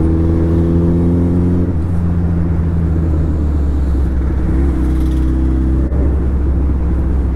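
Suzuki Hayabusa's inline-four engine running at a steady cruise under a heavy, constant low rumble, heard from the rider's seat. A steady droning note stands out for the first couple of seconds and again around five seconds in.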